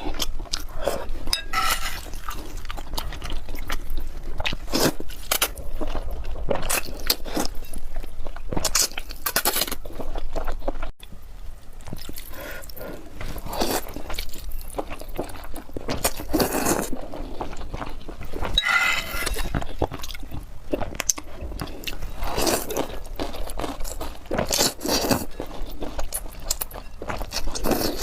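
Close-miked eating sounds: a person chewing and biting food, with crunchy bites coming in irregular bursts.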